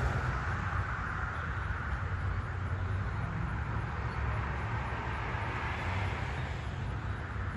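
Steady low rumble of a vehicle engine under outdoor traffic noise.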